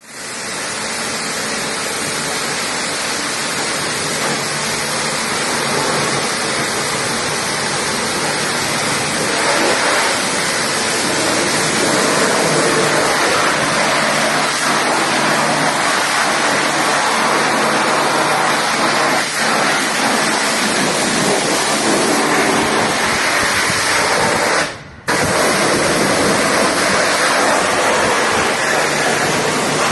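HD 7/16-4 Cage Classic high-pressure washer running and spraying water: a steady, loud hiss of spray over a low motor and pump hum. It cuts out briefly near the end, then resumes.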